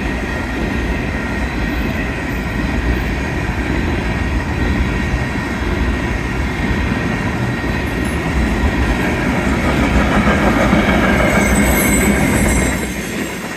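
Freight cars of a long Union Pacific manifest train rolling past at speed, a steady loud rumble and clatter of steel wheels on the rails. A faint high wheel squeal comes in near the end.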